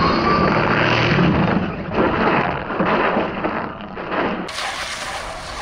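Traxxas XO-1 RC car's brushless electric motor whining at high speed, with a rising whine in the first second. Then comes a run of irregular knocks and scrapes as the car flips and tumbles on the asphalt.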